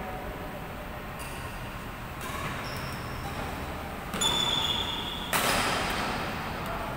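Badminton rackets striking a shuttlecock in a doubles rally: about four sharp hits a second or so apart, each ringing in the large hall.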